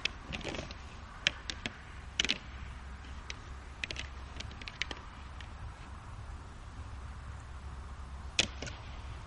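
Antlers of two fallow deer bucks clacking and knocking together as they fight with locked antlers: irregular sharp cracks, some in quick pairs, the loudest about a second in and near the end, over a steady low rumble.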